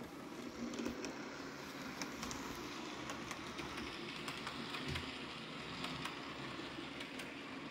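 Model electric train running along the layout's track: a steady motor and wheel hum with light, irregular clicks from the rail joints, growing louder in the first second as it comes past.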